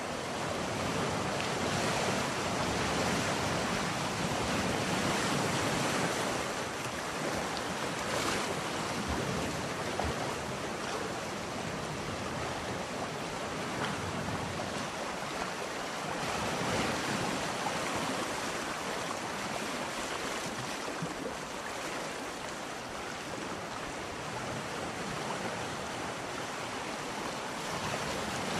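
A steady rushing noise with no speech or tune, swelling and easing slowly over several seconds.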